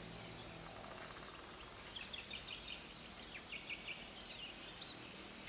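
Outdoor ambience of small birds calling in quick short chirps and falling whistles, thickest in the middle, over a steady high insect hum.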